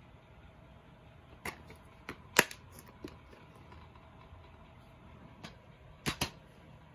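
Plastic DVD case being handled: a few sharp clicks, the loudest about two and a half seconds in as the case snaps shut. A quick double click near the end.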